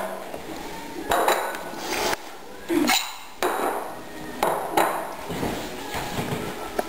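Ceramic plates set down and moved on a wooden table: a string of separate clinks and knocks, each ringing briefly.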